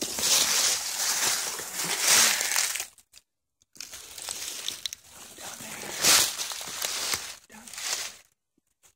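Footsteps crunching and rustling through dry fallen leaves, with two brief breaks in the sound, about three seconds in and near the end.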